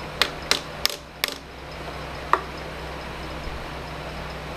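Hammer tapping a workpiece held in a milling vise on parallels, the usual way of seating a part down before the vise is tightened. There are four quick taps about a third of a second apart, then one more sharp tap with a short ring a little after two seconds in.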